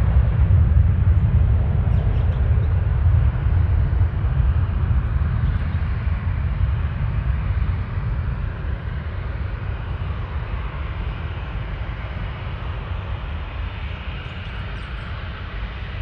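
Boeing 737 jet engines: a deep, steady roar that slowly fades, with a fainter higher engine whine in the later part.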